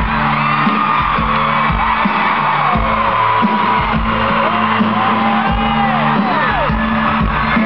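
Live country band playing loudly over a concert PA, with audience members whooping and cheering over the music.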